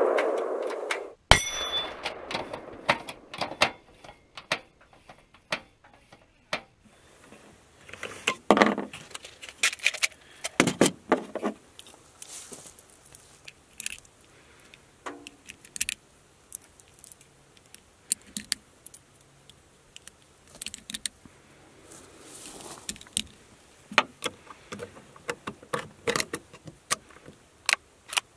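A steel gong target's ring dies away at the start, and a sharp snap comes about a second in. Then a long, irregular run of small metallic clicks and rattles follows as .17 HMR cartridges are pressed into a Savage bolt-action rifle's magazine and the rifle is handled.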